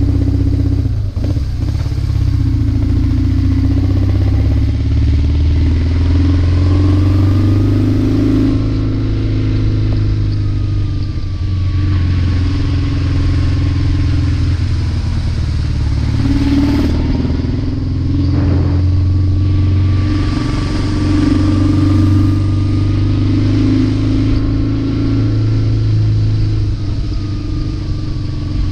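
Motorcycle engine running under way, heard from the bike's onboard camera, its note swelling and easing with the throttle and breaking briefly a few times.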